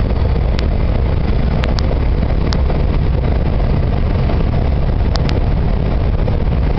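Steady, loud rumble of engine, tyre and wind noise inside the cab of a truck cruising at highway speed, heaviest at the low end. A few sharp ticks come through now and then, two of them close together near the end.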